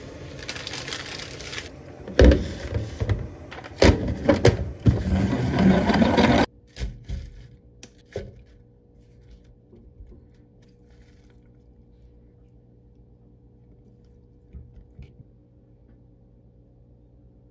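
A pot of spaghetti at a rolling boil on a gas burner, a steady rushing that grows louder and rougher from about two seconds in. It cuts off abruptly about six and a half seconds in, leaving a faint steady hum and a few light clicks.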